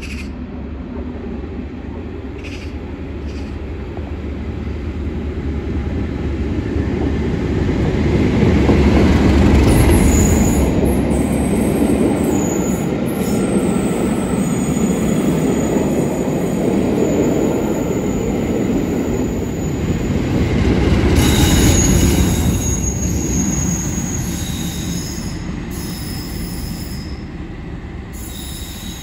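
Diesel-hauled passenger train of Class 37 and Class 50 locomotives passing close by. It builds to a loud peak as the locomotive goes by and swells again later as the coaches roll past. Thin high wheel squeals come and go through the second half.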